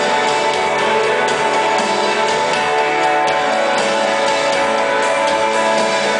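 Live instrumental post-rock band playing: layered, sustained electric guitars over drums, steady and loud.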